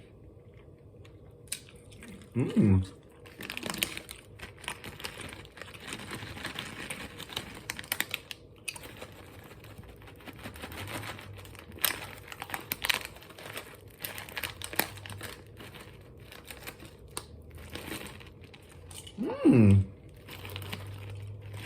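Plastic candy pack crinkling and rustling in the hands as sour mini Starburst are taken out, with scattered small crackles and clicks throughout. Two short voiced 'mm' sounds come in, about two seconds in and near the end.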